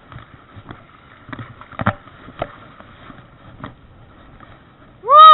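Scattered soft knocks and clicks of the spinning rod and reel being handled, then near the end a loud, short hooting call that rises and falls in pitch.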